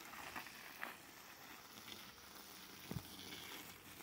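Faint, steady hiss of a garden hose spray nozzle jetting water onto plants and soil. A soft knock comes about three seconds in.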